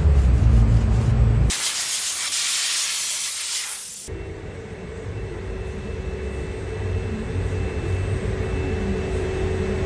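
Steady spray hiss for about two and a half seconds, starting and stopping abruptly, as from a spray gun or aerosol used in rim refinishing.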